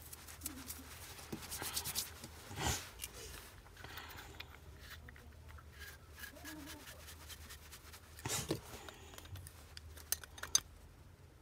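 Quiet hand-handling of small parts of a Wagner Control Pro sprayer pump during reassembly with new seals: light rubbing with a few clicks, two brief louder noises about a quarter and three-quarters of the way in, and a couple of light clicks near the end.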